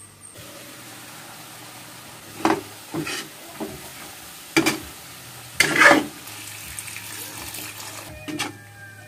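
Food sizzling as it fries in a pan, with a cooking utensil stirring and knocking against the pan about six times. The loudest and longest scrape comes about six seconds in.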